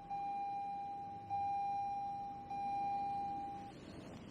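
2020 Toyota Corolla SE's seatbelt warning chime sounding from the dashboard: a steady single-pitch tone repeated about every 1.2 seconds, stopping shortly before the end.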